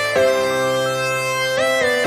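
Instrumental background music: a melody of long held notes, sliding in pitch into the next note twice.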